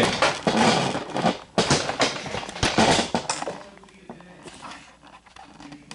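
Handling noise as the camera is moved: a rapid run of knocks and clicks for about three and a half seconds, then it dies down to a faint background.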